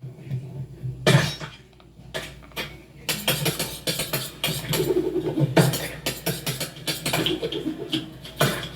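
Restaurant clatter of dishes and cutlery: a busy run of knocks and clinks, with a louder crash about a second in and more strong hits later.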